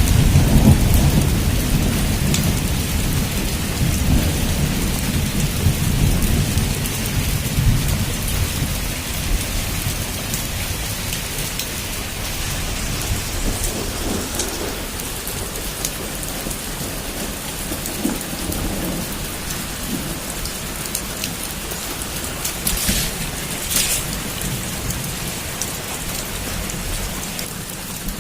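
Heavy rain falling steadily on a roof, with scattered drop ticks. A low roll of thunder rumbles at the start and fades away over the first eight seconds or so.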